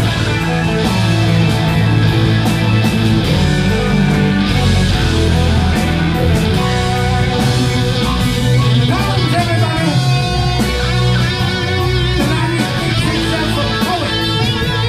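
Rock band playing live: electric guitars over bass and a drum kit, loud and steady throughout.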